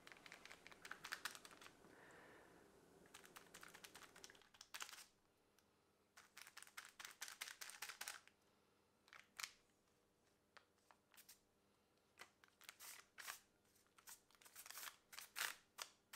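Faint, quick scratchy taps of a pastry brush dabbing egg wash over twisted puff-pastry straws on silicone baking paper. The taps come in short runs with pauses between.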